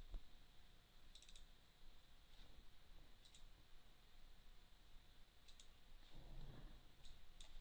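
Faint computer mouse clicks, a handful scattered over several seconds, with a quick run of three or four about a second in.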